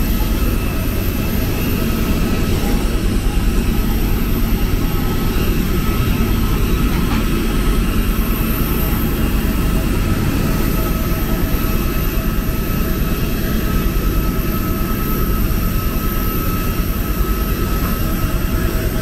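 Airliner's engines running steadily, heard inside the passenger cabin as a constant low rumble with a few steady whining tones above it.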